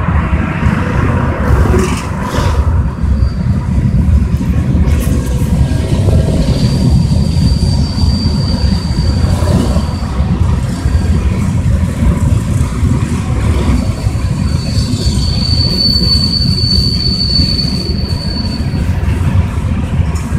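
Kansas City Southern de México freight train of gondola cars rolling past with a steady, heavy rumble of wheels on rail. A thin, high-pitched wheel squeal rises over it twice: once from about a third of the way in, and again, longer and louder, past the middle.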